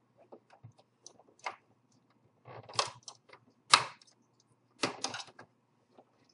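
A screwdriver prying the Xbox 360 Slim's plastic case apart, the housing clips clicking and snapping as they release: several sharp separate plastic clicks, the loudest just past the middle.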